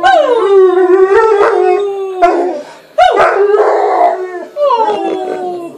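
A young male American Akita howling in long drawn-out calls, with a woman howling along. There are three long howls; the middle one is rougher, and the last one falls in pitch.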